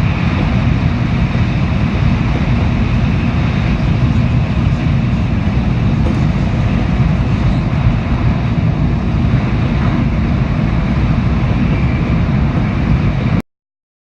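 Steady running noise inside a Shinkansen car: a deep rumble with an even hiss over it. It cuts off abruptly near the end.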